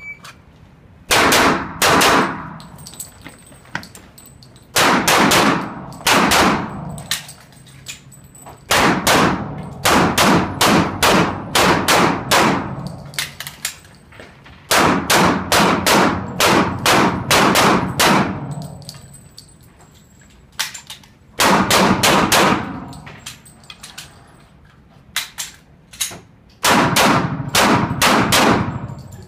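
Handgun shots fired in fast strings, several shots each, ringing off the walls of an indoor range. About seven strings come in turn, with short quiet gaps between them while the shooter moves and reloads.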